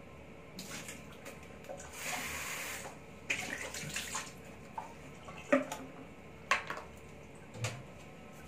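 Water running for about a second, then a series of sharp knocks and clinks as kitchen containers are handled.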